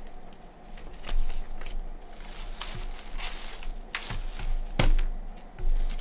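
Thin plastic wrapping rustling and crinkling as a small keypad is unwrapped by hand, with a few sharp knocks as it is handled and set down on a desk mat.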